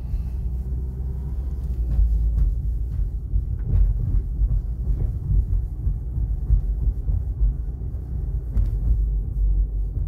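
Low, steady rumble of a car on the move, heard from inside the cabin: road and engine noise.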